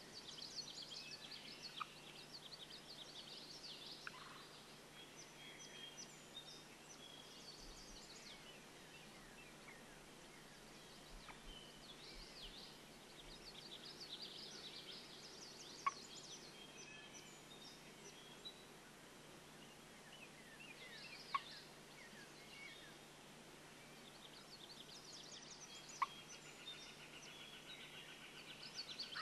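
Songbirds chirping and trilling, with three short, sharp wild turkey clucks about five seconds apart standing out above them.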